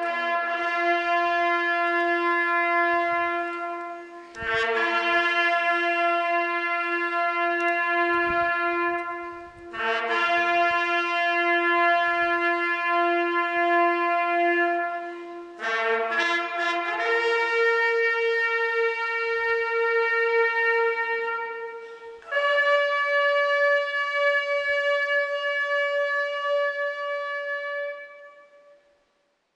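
Brass instruments playing a slow melody in long held notes, in phrases of about five or six seconds, the last note fading away near the end.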